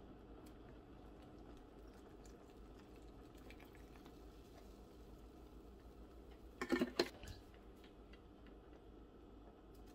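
Faint steady kitchen room tone, broken about seven seconds in by a brief cluster of small knocks and clicks as kitchen containers are handled: a plastic almond-milk bottle is put away and a small glass jar of flour is taken up.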